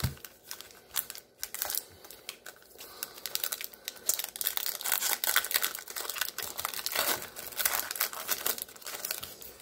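Foil wrapper of a 2021 Prizm Draft Picks football card pack crinkling and tearing as it is ripped open by hand. Scattered crinkles at first, then steady crackling from about three seconds in as the wrapper is torn and pulled apart.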